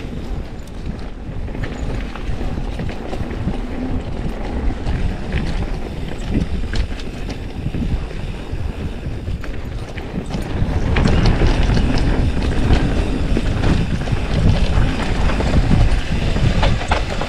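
Mountain bike rolling fast along a dirt trail, heard from a chin-mounted action camera: wind buffeting the microphone, with tyre rumble and scattered clicks and rattles from the bike. It gets louder about eleven seconds in.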